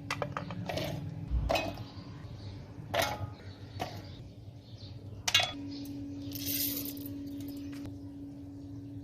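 Kitchen utensils clinking against dishes: about six separate sharp clinks over the first five seconds, then a brief hiss about six and a half seconds in, over a steady low hum.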